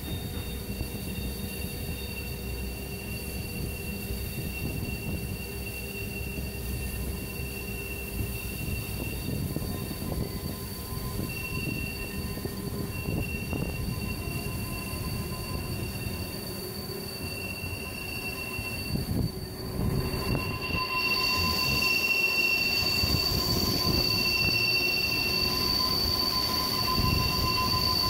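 Rhaetian Railway Bernina Express train rounding a tight curve, its wheels rumbling on the rails under high, steady squealing tones that come and go. The squeal is the wheel flanges grinding against the rail on the sharp bend, and it grows louder about two-thirds of the way in.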